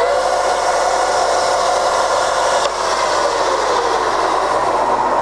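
Scott 6250B centre lathe's headstock spindle and gears running steadily at about 1000 rpm, a whine of several steady tones over a hiss, with one short click about two and a half seconds in.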